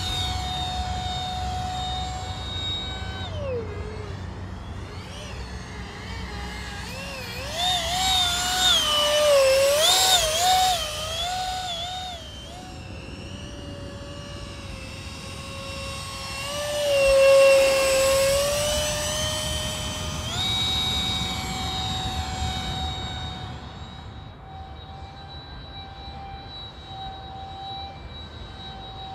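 The 64 mm electric ducted fan of a foam RC F-16 jet whining in flight. The whine drops in pitch about three seconds in, warbles up and down around ten seconds, is loudest a little past halfway, then settles back to a steady higher pitch and grows fainter in the last third.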